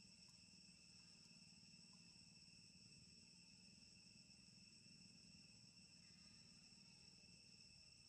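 Faint, steady insect chorus, a continuous high-pitched trilling drone on several steady pitches.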